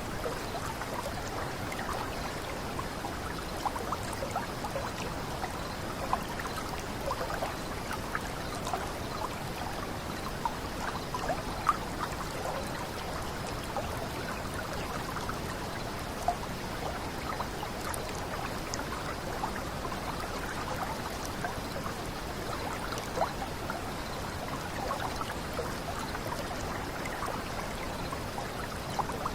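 Small water cascade babbling and trickling steadily, with a constant gurgle of many small bubbles and an occasional slightly louder splash.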